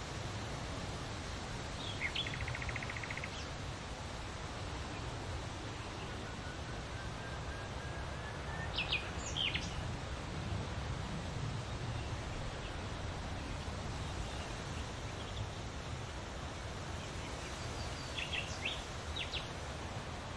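Songbirds calling over a steady rustle of leaves in the wind: a rapid trill about two seconds in, a faint slowly rising whistle, then sharp chirps near the middle and again near the end.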